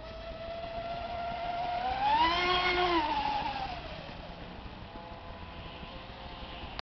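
Motor of a Gozilla XXL radio-controlled model speedboat whining at speed across the water. Its pitch and loudness climb to a peak about two seconds in, then fall away as it goes past.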